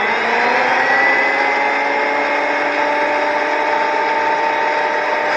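Delta 22-540 12-inch portable planer running with no board in it, its high whine rising slightly in the first second as the cutterhead finishes spinning up, then holding steady.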